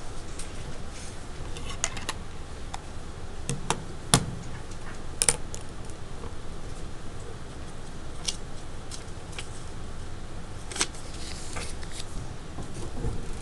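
Classroom room noise while students work silently: scattered small clicks and taps over a steady low hum, the sharpest knocks about four seconds in and just after five seconds.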